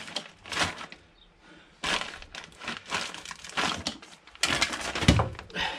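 Clear plastic bag of parts crinkling in several irregular bursts as it is handled, with a dull thump about five seconds in.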